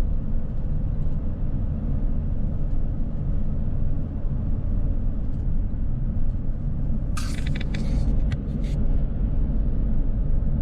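Steady low rumble of an RV's engine and tyres on the highway, heard from inside the cab. About seven seconds in, a quick burst of sharp rattling clicks is heard for about a second and a half.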